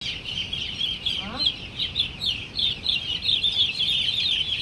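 Hundreds of young chicks peeping together: a dense, steady chorus of high, overlapping chirps. A brief lower rising call cuts through about a second in.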